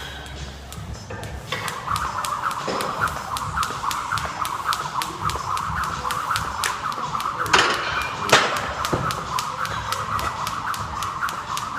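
Jump rope skipping, the rope ticking on the floor in a fast, even rhythm, with a steady high squealing tone alongside and two louder slaps a little past the middle.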